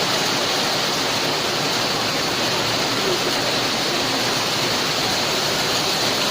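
Heavy hailstorm downpour: rain and hail pouring down in a steady, dense hiss.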